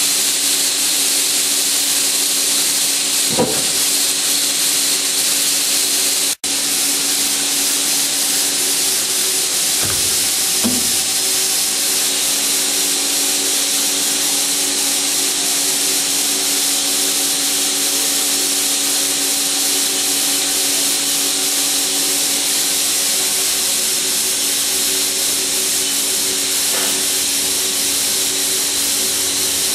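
Haas SL-30T CNC lathe running: a steady hiss with a steady machine hum underneath and a couple of faint knocks. The sound cuts out for an instant about six seconds in.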